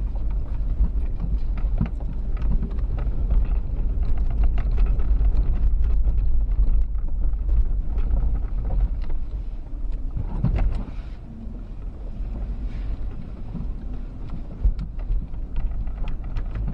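Inside the cabin of a V6 automatic 120-series Toyota Prado crawling in low range over a rough 4WD track: a constant low rumble of engine and tyres, with frequent small knocks and rattles.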